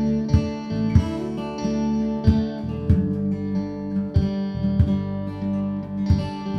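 Instrumental background music featuring guitar, with sustained notes over low recurring beats.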